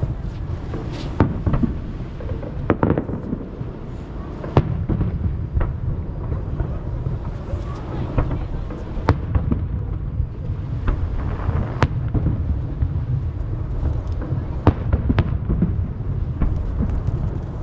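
Aerial fireworks bursting: sharp bangs and crackles about every one to two seconds over a continuous low rumble, the reports echoing off the surrounding mountains.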